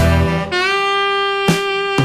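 Background jazz music led by a saxophone, which holds one long note through the middle, over a bass line.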